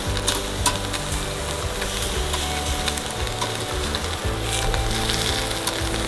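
Meat sizzling and crackling on the wire grate of a charcoal grill, with a few sharp clicks of metal tongs.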